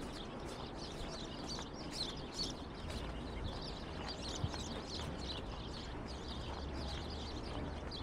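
Small birds chirping busily, many quick chirps a second, over a steady low city rumble.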